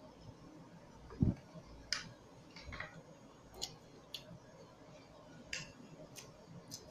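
A person chewing food, with scattered small wet mouth clicks and lip smacks at irregular intervals and a soft low thump about a second in.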